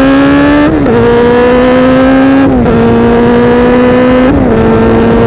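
Suzuki RF inline-four built to about 1100 cc, a GSX-R1100 bottom end under an RF900 cylinder head, heard from on board under acceleration. Its pitch climbs steadily and drops sharply at three gear changes, about a second, two and a half, and four and a half seconds in.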